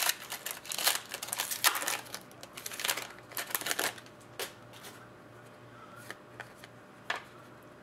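Trading cards being flipped through and handled: a quick run of card rustles and clicks over the first few seconds, then a few scattered taps.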